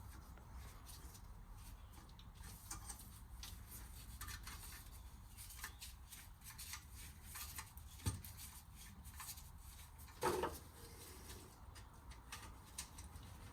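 Faint workshop handling noise: small clicks and scraping of metal engine parts and tools being moved about, with a single dull knock about eight seconds in and a short clatter a couple of seconds later, over a steady low hum.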